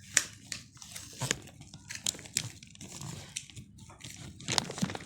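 Plastic packaging crinkling as it is handled, with irregular sharp clicks and crackles.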